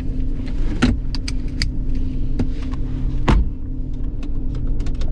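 Jeep Cherokee engine idling steadily, heard from inside the cabin. Several sharp clicks and rattles sound over it, the loudest near one second in and about three seconds in.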